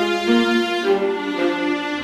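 Background music of held, sustained notes in several pitches, with no deep bass underneath.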